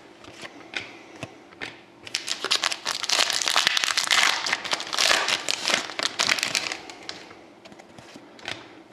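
Crinkling of a trading-card pack wrapper being handled, with a few light clicks at first, then a dense crackly run from about two to seven seconds in that tails off to scattered clicks.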